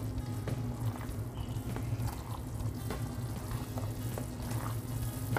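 Sugar syrup boiling in a pan on a gas burner, cooking toward one-thread consistency: a steady low rush with small scattered pops of bursting bubbles.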